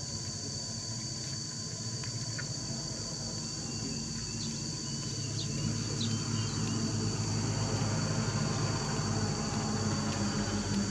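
Steady high-pitched insect drone, like crickets or cicadas, over a low steady hum that grows a little louder past the middle. A few short, faint chirps come between about four and six seconds in.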